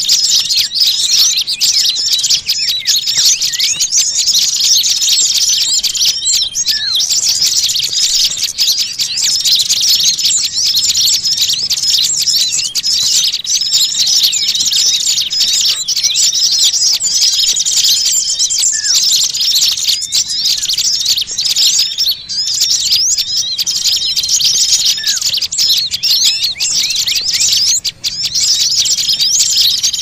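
Dense, unbroken chorus of many small songbirds chirping and trilling at once, a busy mixed bird-lure call. A short rising note cuts through now and then.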